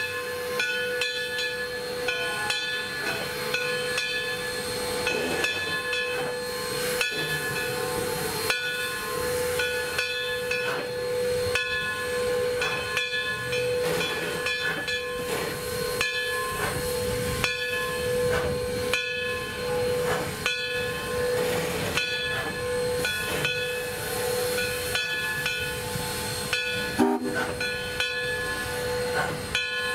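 The bell of a Baldwin-built 2-8-0 S160 steam locomotive ringing steadily, about one strike a second, over the hiss of steam as the engine creeps forward. One louder knock comes near the end.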